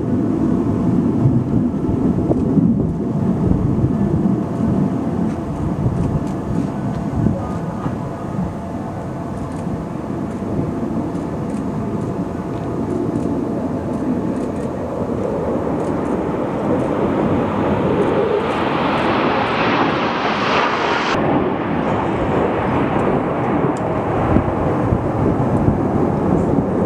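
Jet noise from Blue Angels F/A-18 Super Hornets, twin General Electric F414 turbofans, passing in formation: a steady low rumble that builds into louder, higher-pitched jet noise past the middle and cuts off suddenly about three-quarters of the way through.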